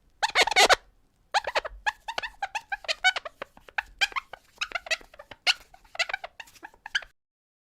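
Squeaky-clean window glass being wiped, squeaking in a quick run of short pitched squeaks that bend up and down, stopping about seven seconds in.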